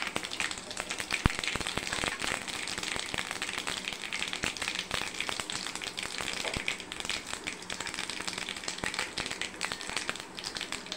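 Mustard seeds, cumin, fenugreek, peppercorns and dried red chillies sizzling and crackling in hot oil and ghee in a nonstick kadai: the tempering for sambar. A single louder click comes about a second in.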